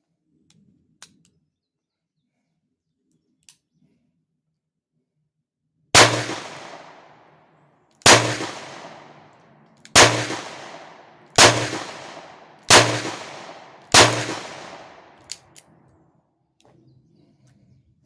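Taurus 856 .38 Special revolver firing Federal 130-grain full metal jacket rounds. There are six sharp shots, emptying its six-shot cylinder, spaced roughly one and a half to two seconds apart, and each rings off briefly. A couple of faint clicks come before the first shot.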